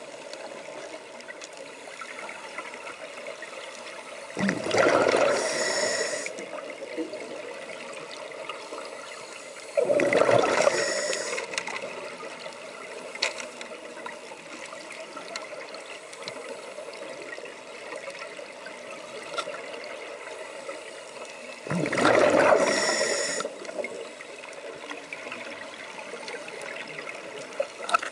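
Scuba regulator exhalations underwater: three rushes of bubbles, each about a second and a half long and several seconds apart, over a faint steady underwater hiss.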